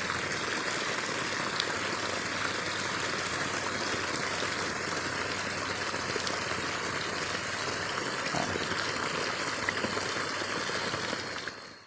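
Steady, even rush of running water, like a stream flowing, holding one level throughout and cutting off abruptly at the very end.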